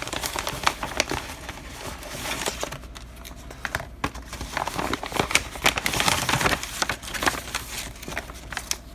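Packaging being handled and opened by hand: crinkling and rustling with many irregular small clicks and taps, a little tearing among them.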